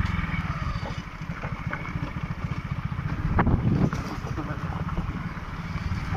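Motorcycle engine running at low speed, a quick, even putter of firing strokes, with a brief louder bump about three and a half seconds in.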